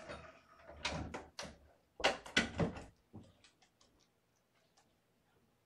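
Handling noise: a cluster of sharp knocks and clacks about a second in, another about two seconds in, then a few faint clicks.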